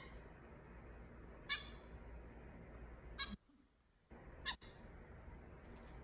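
Fledgling blue jay giving short calls, one about every second and a half.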